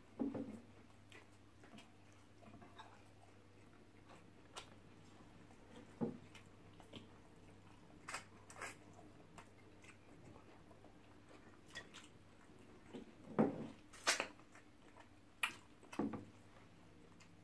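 Faint eating sounds: chewing and wet mouth smacks from amala with ogbono soup and fried rice, with scattered short clicks, a few louder smacks in the second half.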